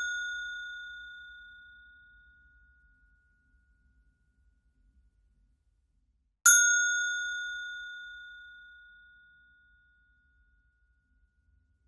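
A bell dinging: a clear high note fading away over about three seconds, then struck once more about six and a half seconds in and ringing out again.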